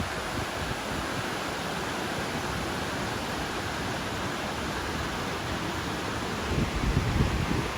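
Mountain creek water rushing steadily over rocks, a constant hiss-like roar. A brief low rumble swells up near the end.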